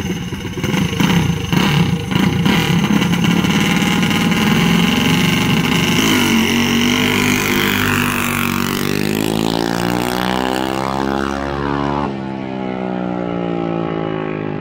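Mini bike's small gas engine revving hard as it launches off the drag strip start line, then running on at full throttle, its pitch falling as the bike pulls away down the track.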